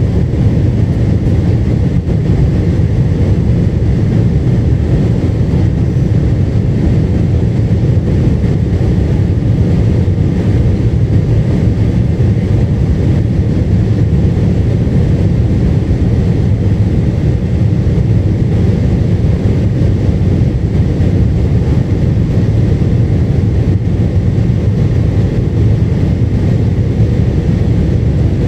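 Steady cabin noise inside a Boeing 747-8 airliner in flight: an even, low rumble of engines and airflow with no change in level.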